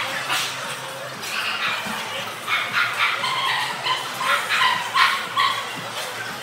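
Dogs barking repeatedly in short barks, several to a second at times, in a large hall.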